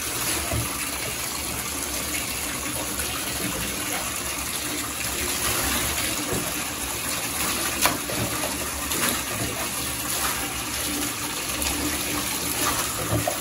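Bathtub tap running steadily into the tub, with water splashing as it is poured from a jug over a wet cat. A couple of short knocks come about eight and nine seconds in.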